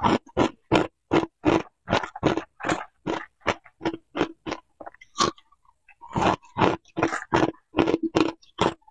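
A person chewing hard ice chunks close to the microphone: loud, sharp crunches at about three a second, breaking off briefly about five seconds in and then resuming.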